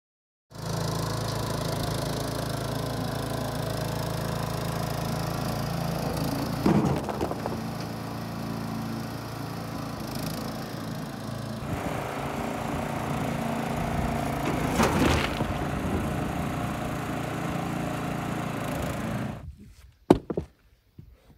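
A Deleks motorised mini dumper's small engine runs steadily while its skip tips a load of stones into a pit. The stones rattle and clatter down twice. The engine stops suddenly near the end, and a sharp knock of stone on stone follows.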